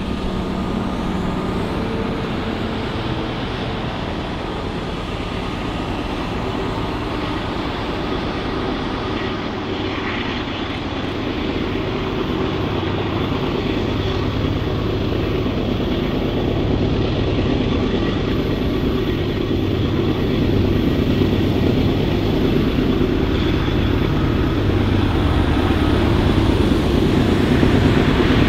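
Canadian Pacific diesel freight locomotive running as it approaches, a steady engine rumble with wheel and rail noise that grows gradually louder as the train draws nearer.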